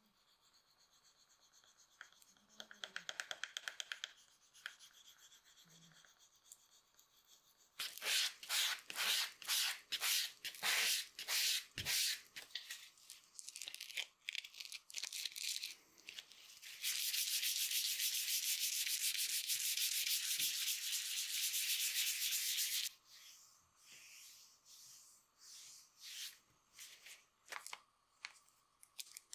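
Leather sole being sanded by hand, abrasive rubbed back and forth over the leather in scratchy strokes. A quick light flurry comes early, then separate strokes at about two or three a second. Midway there is a fast unbroken scrubbing run of about six seconds, then a few scattered strokes.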